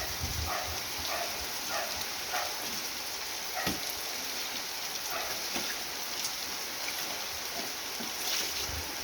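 Heavy rain falling steadily, an even hiss, with one sharp tap a little under four seconds in.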